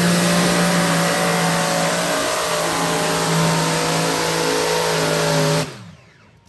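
Modified pulling tractor's engines running flat out under load as it drags the weight sled, a loud steady engine note with little change in pitch. The sound cuts off suddenly near the end.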